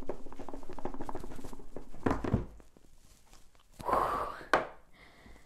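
An iPad Pro box being handled and opened by hand: crackling and rustling of the packaging, a thump about two seconds in, a short scraping slide near four seconds, and one sharp click.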